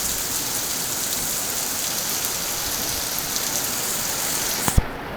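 Heavy rain pouring down in a steady dense hiss during a thunderstorm. Near the end come two sharp knocks, and then the hiss drops off.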